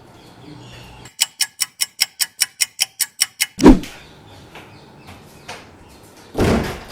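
A rapid, even run of about a dozen sharp clicks, about five a second, then a heavy thump about a second later and a duller thump near the end.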